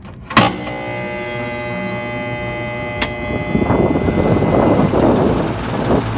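A sharp click, then a two-year-old Trane scroll compressor hums loudly without starting: it is stalled and drawing locked rotor amps, a sign of a failing compressor that its overload keeps shutting off. A second click comes about three seconds in, and a louder steady rushing noise takes over soon after.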